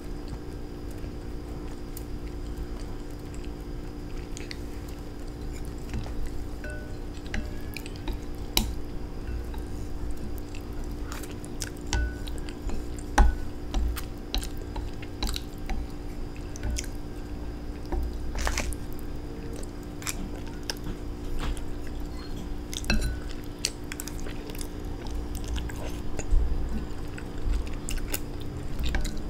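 Close-up eating of instant noodles: chewing, with irregular sharp clicks of utensils against the bowl, over a steady low hum.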